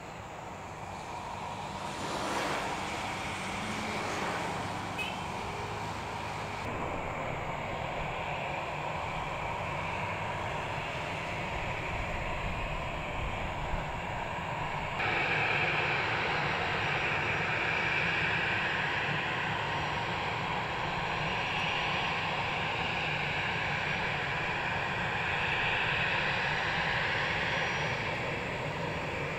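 Airbus A321's twin jet engines running on the runway for takeoff, their noise building early on and stepping up sharply about halfway through as takeoff thrust is set, then holding steady and loud.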